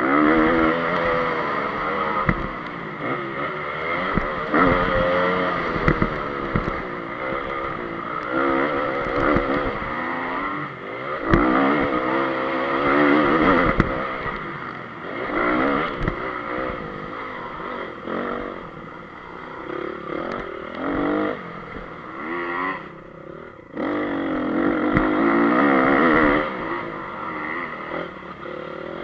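Honda CRF250 motocross bike's four-stroke single-cylinder engine revving up and falling back again and again as the rider accelerates and shifts round the track, with knocks and clatter from bumps. About three-quarters through, the engine note cuts out for under a second, then picks up again.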